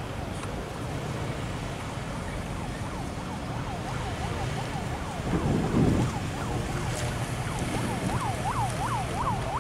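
Fire truck siren on a fast yelp, rising and falling about three times a second and growing louder near the end, over the steady rumble of a moving vehicle. A short, louder burst of rumbling noise comes about halfway through.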